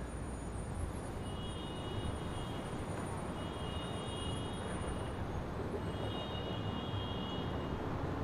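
Outdoor city ambience: a steady rumble of distant traffic. A faint high tone comes three times over it, each time for about a second.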